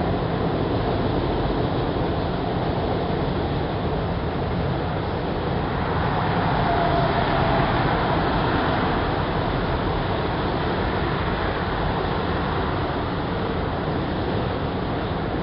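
Freight train of autorack cars rolling past at speed: a steady rumble and clatter of steel wheels on rail that swells a little in the middle.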